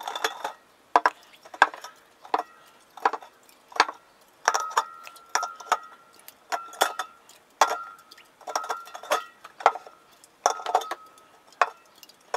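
Small aluminium soda cans being set down and stacked one on another, each clinking with a brief metallic ring, about one and a half knocks a second.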